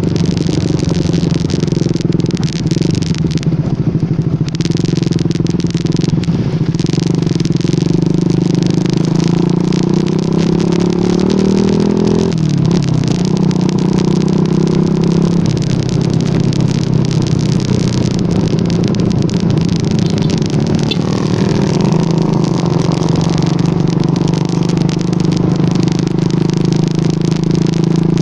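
Yamaha R15 V2's 150 cc single-cylinder engine running under way, its note climbing steadily for a few seconds and dropping suddenly near the middle, then holding steady.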